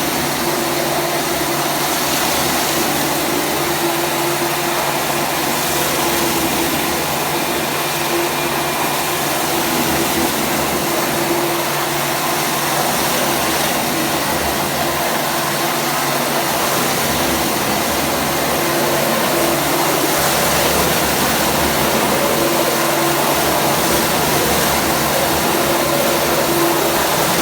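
Industrial high-speed mixer running steadily: a loud, even rushing noise with a steady hum underneath.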